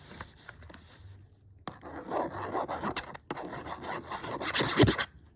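Scribbling on paper: a drawing tip scratching out squiggly lines in quick back-and-forth strokes, starting about two seconds in.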